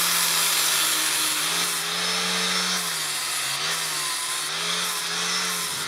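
Chicago Electric angle grinder with a flap disc sanding down the wooden handle scales of a knife, a steady grinding hiss over the motor's hum, which wavers in pitch as the disc is pressed into the wood.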